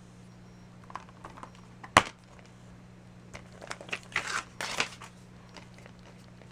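Plastic Blu-ray packaging being handled: a few light clicks, one sharp snap about two seconds in, then a burst of crinkling and rustling, over a steady low electrical hum.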